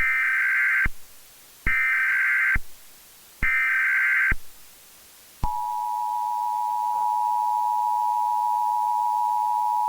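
Emergency Alert System tones: three short bursts of the SAME digital data header, about a second each. About halfway through, the steady two-tone EAS attention signal starts and holds, marking the start of a new emergency alert.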